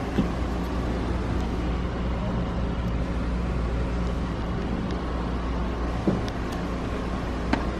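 Steady low hum and rumble of room background noise, with three short light knocks: one just after the start, one about six seconds in and one near the end.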